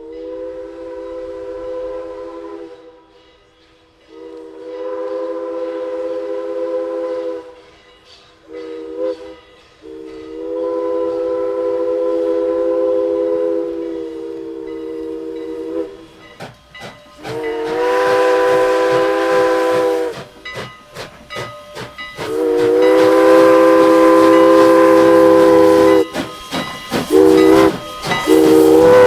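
A locomotive's multi-note chime sounds the grade-crossing signal twice: long, long, short, long. Each blast is one steady chord, and rapid clicks are heard between the blasts partway through.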